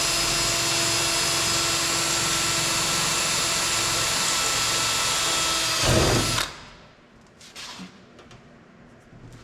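Power drill running steadily with a 3/16 in bit, drilling a rivet hole through a sheet-metal cab body panel; about six seconds in the motor is released and winds down with a falling pitch. A few faint clicks follow.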